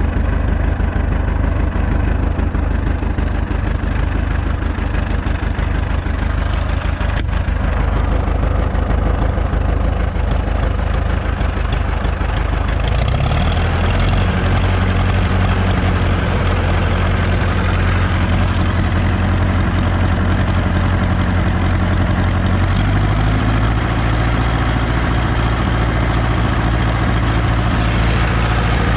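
Ursus C-360 tractor's four-cylinder diesel running steadily at idle, about 750 rpm. It is then throttled up in two steps, about halfway through and again near three quarters through, to about 1700 rpm.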